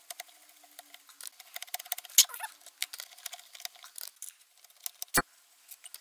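Screwdriver turning out the Phillips screws that hold the cylinder of a 12 V car air compressor: a run of small metallic clicks and ticks, with a sharper click about two seconds in and another near the end.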